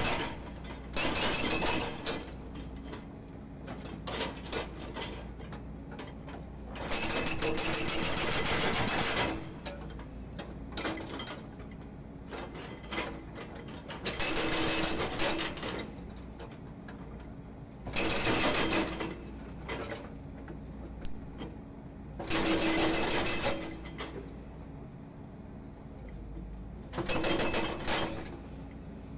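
Hydraulic breaker on a Volvo EC210D excavator hammering concrete pile offcuts in rapid bursts of one to two seconds, about six times, the longest about two seconds. Between bursts the excavator's diesel engine keeps running.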